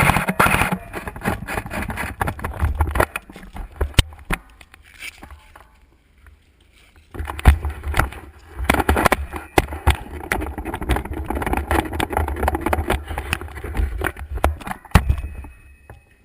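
Handling and movement noise on a rifle-mounted GoPro: irregular knocks, clicks and low rumble in two busy stretches, with a quieter gap in between.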